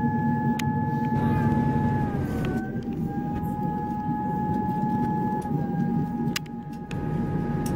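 Diesel passenger train running along the line: a steady rumble with a high whine over it that sags in pitch twice.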